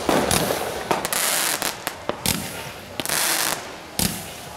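Fireworks going off: the hiss of sparking ground fountains, broken by several sharp pops and crackles.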